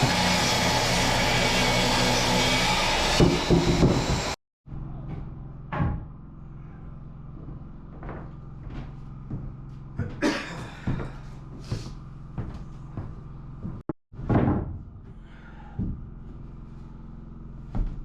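Loud, steady machine noise for about four seconds that cuts off abruptly. It is followed by scattered knocks and thumps, about five of them, over a low steady hum, typical of hands-on building work.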